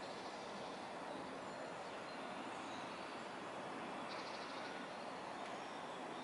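Steady outdoor background noise, an even hiss and hum, with faint high bird chirps over it and a short bird trill about four seconds in.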